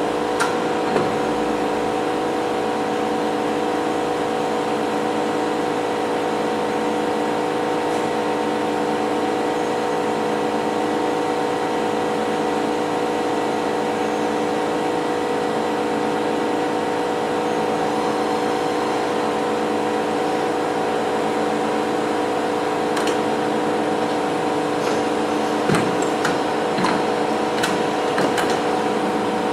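Novar CNC bed milling machine running steadily, a constant machine hum with several fixed tones, with a few short clicks or knocks near the end.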